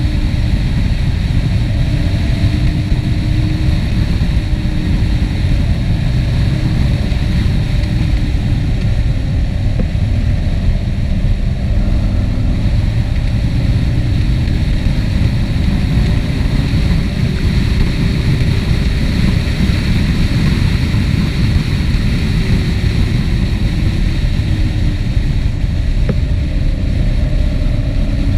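A motor vehicle on the move: a loud, unbroken low rumble of engine, road and wind, with a faint engine note wavering slightly in pitch.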